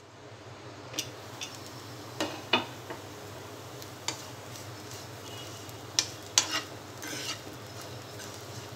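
Metal spatula stirring and scraping teasel gourd pieces frying in a nonstick pan, with a scatter of sharp clinks and scrapes against the pan, the loudest about two and a half and six seconds in. Underneath, a faint sizzle and a low steady hum.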